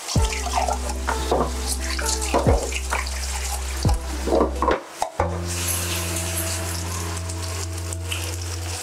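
Paneer tikka skewers (paneer, onion and capsicum) frying in a little oil on a non-stick tawa over low heat: a steady sizzle.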